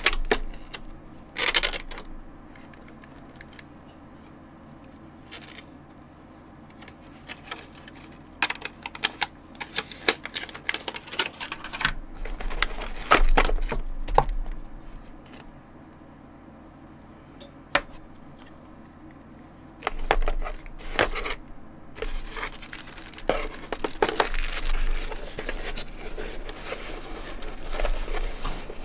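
Hands unpacking a pen display's accessories: scattered clicks and knocks of plastic items and a power adapter being handled, crinkling of plastic bags, and near the end a stretch of steady rustling as a cardboard insert is moved over plastic wrap. Quiet gaps between the handling hold only a low steady hum.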